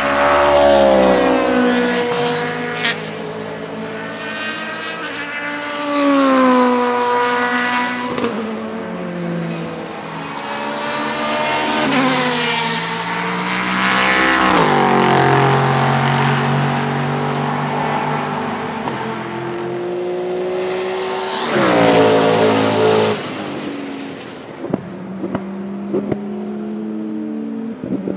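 Open-cockpit sports-prototype race cars pass at speed one after another, about five passes. Each engine note swells, then drops in pitch as the car goes by, with stepped changes in pitch from gear shifts. A few short sharp pops come near the end.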